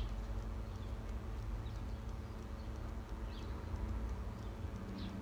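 Steady low rumble of a car heard from inside the cabin, with a few short, falling high chirps, one about a third of the way in and two near the end.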